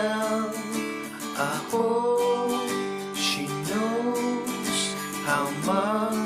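Instrumental passage of a song: acoustic guitar strummed in a steady rhythm, with held melody notes over it that slide up into each new note.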